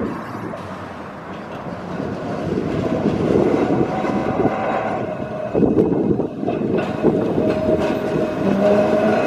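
Vintage Liverpool Corporation Tramways double-deck tram 762 running along the track past the listener, its wheels and running gear rumbling louder as it comes close. A steady high-pitched squeal from the wheels sets in near the end as the tram rounds the curve.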